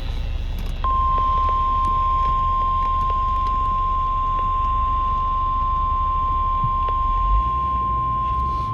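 NOAA Weather Radio warning alarm tone: one steady, unbroken 1050 Hz tone starting about a second in, over a low background hum. The tone is sent only for warnings, here announcing a special marine warning.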